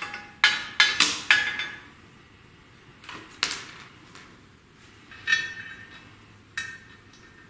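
Steel bolts and small hardware clinking and tapping against metal as they are picked up and fitted at the back of an engine block by the flywheel. There are several ringing clinks close together in the first second and a half, then single taps spaced a second or two apart.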